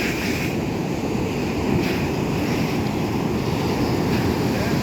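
Steady rush of surf on the shore, with wind rumbling on the microphone.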